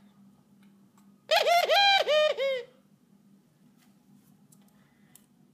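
Young mourning dove calling: a quick run of about six short, arching, pitched notes lasting about a second and a half.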